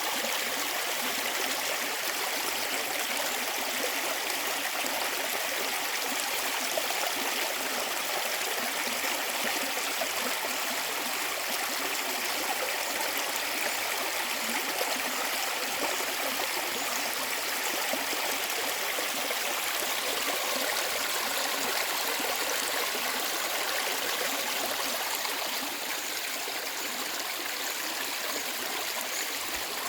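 Mountain valley stream flowing, a steady rush of running water with babbling and gurgling, easing slightly in level near the end.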